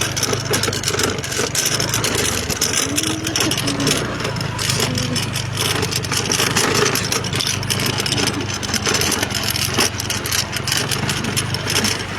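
A vehicle's engine runs steadily while travelling, a constant low hum under continuous road and wind noise.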